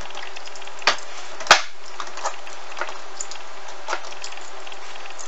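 Vegetable peeler scraping strips of skin off a hard, unripe green papaya: a series of short scrapes and clicks, the loudest about a second and a half in, over a steady hiss.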